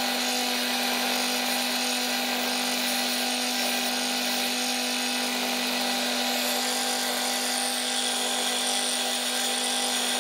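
Ryobi belt and disc sander running steadily with a constant motor hum and hiss, as a merbau wood cutout is pressed against the sanding belt to sand off tab marks and smooth its edges.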